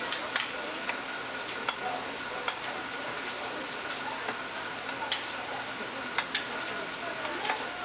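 Tteokgalbi (minced short-rib patties) sizzling on a flat iron griddle, with sharp clicks about once a second as a metal spatula scrapes and taps the griddle while pushing them around.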